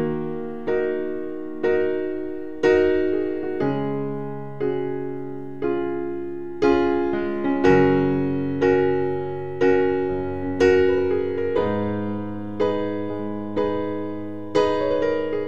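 Gentle solo piano background music: a chord struck about once a second and left to ring and fade, over a low sustained bass note.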